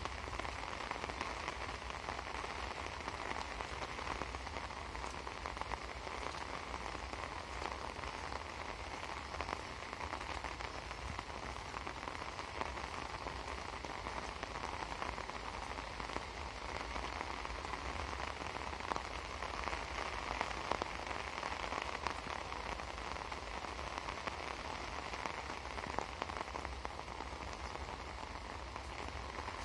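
Heavy rain falling steadily: an even hiss with scattered louder drops and a low rumble underneath.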